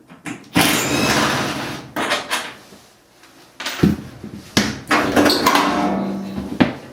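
Sheet-metal cabinet panels of a GE dryer being worked loose and moved: a long scrape about half a second in, then several sharp knocks and clanks of metal, with a brief ringing tone near the end.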